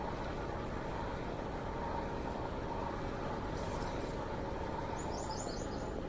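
Steady wind and rolling noise of a bicycle moving along a paved path. About five seconds in, a bird chirps a quick run of about five short high notes.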